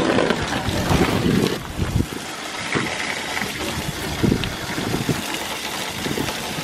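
Garden hose pouring a steady stream of water onto a plastic tarp lining a pickup truck bed, splashing as the makeshift pool slowly fills. Gusts of wind on the microphone come and go.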